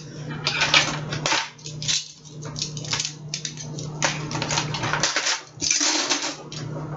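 Dishes and cutlery clattering and clinking as a dishwasher is unloaded and they are put away, a rapid series of knocks and scrapes over a steady low hum.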